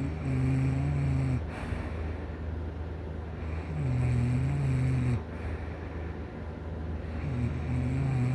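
A person snoring in sleep: three drawn-out, pitched snores, about one every three and a half seconds, each lasting about a second and a half. A steady low hum runs underneath.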